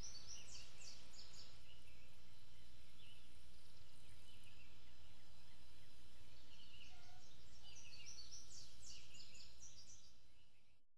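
Outdoor ambience of small birds chirping, short high notes in quick clusters about a second in and again near the end, over a steady low background hum. It fades out at the very end.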